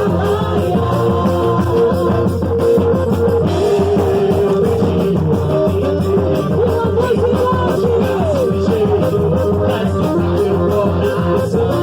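Loud festa junina music with guitar, a steady beat and some singing.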